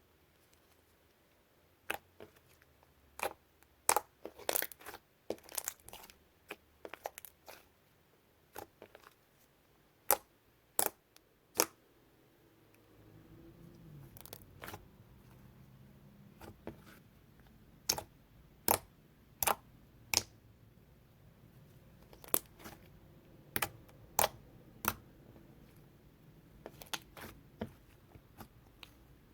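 Thick, glossy slime being squished and poked by hand, giving irregular sharp pops and clicks, some in quick clusters. A faint low hum comes in about halfway through.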